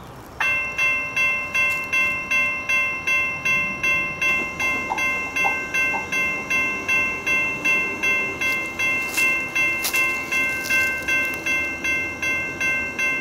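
Railroad grade-crossing bell ringing about twice a second, switching on suddenly just after the start: the crossing warning for an approaching train.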